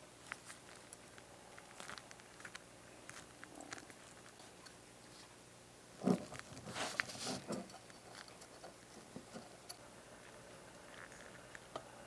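Gloved fingers handling small plastic and metal scale-model car parts: scattered faint clicks and rustles, with a louder run of clicks and rubbing about six seconds in as a model door is pressed against the body.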